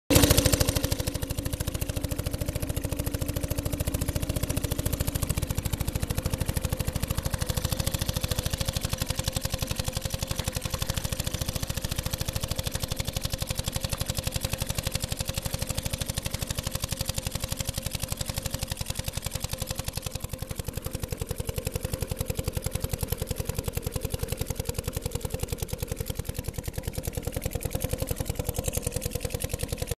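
1907 Waterman Porto single-cylinder two-stroke outboard motor running steadily under way, its firing a fast, even run of pops, with water splashing around it. It drops a little in level after about twenty seconds.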